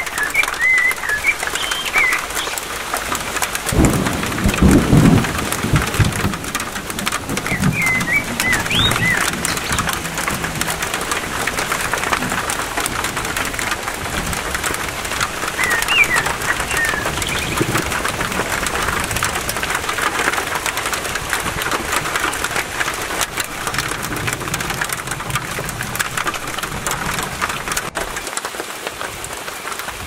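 Steady rain falling through a pine forest. A low rumble of thunder comes about four seconds in, with a weaker one a few seconds later. Short bird chirps are heard three times.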